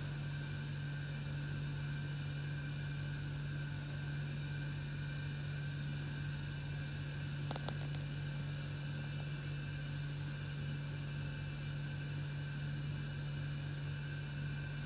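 A steady low mechanical hum with fainter steady higher tones, and one brief click about halfway through. The Amur tiger eating raw meat under it is very quiet.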